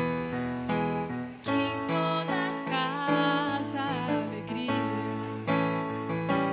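A woman singing a slow Christmas song with vibrato over electric piano chords; the voice comes in about a second and a half in after a short keyboard passage.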